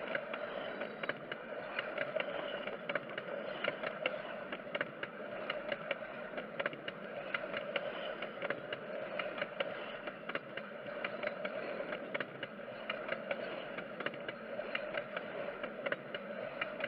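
Narrow-gauge railway carriages rolling directly over the rails at close range: steel wheels and bogies give a continuous rumble with many sharp clicks and clanks.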